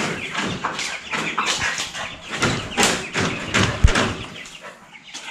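Cornish cross broiler chicks peeping, mixed with scattered clicks and one low thump a little before four seconds in.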